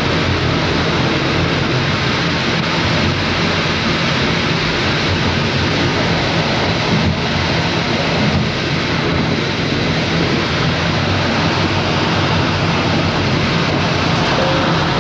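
Steady rumble and rush of a moving electric train heard from inside its last car, wheels running on the rails with a low steady hum underneath.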